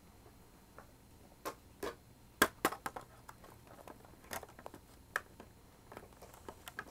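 Scattered sharp clicks and taps of small plastic toys being handled: the hinged plastic door of a toy playset swung open and toy pet figures set down. A quick cluster of taps comes about two to three seconds in, the loudest of them about two and a half seconds in.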